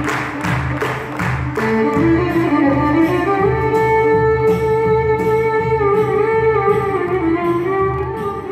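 String ensemble playing live over a steady pulsing low beat; about one and a half seconds in, a sustained solo melody line with slides rises above the strings.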